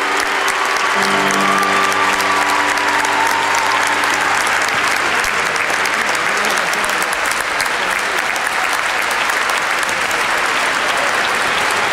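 Concert audience applauding, a dense patter of many hands clapping. Under it a held chord from the band rings out and fades away about four to five seconds in, leaving the applause alone.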